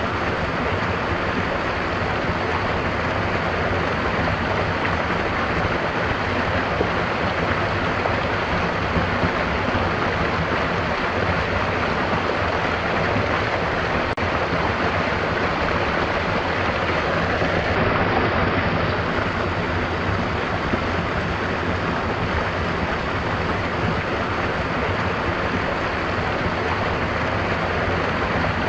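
Stream running: a steady, even rush of flowing water.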